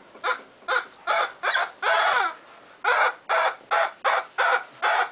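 Two-month-old bull terrier puppy barking in a quick series of high, harsh yaps, about two a second, one drawn out a little longer about two seconds in.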